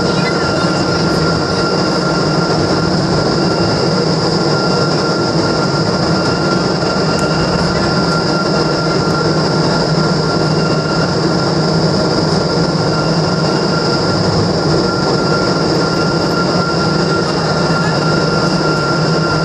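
iFly indoor skydiving vertical wind tunnel running at flying speed: a loud, steady rush of air and fan noise with a constant high whine on top.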